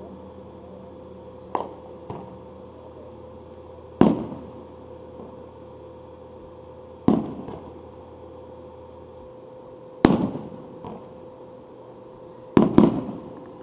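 Aerial firework shells bursting: four loud booms about three seconds apart, each trailing off in a rolling echo, the last quickly followed by a second one, after two fainter pops.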